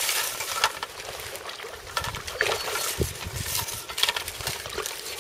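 Irregular splashing and swishing from a hooked pike thrashing at the surface close to the bank as it is played on the rod.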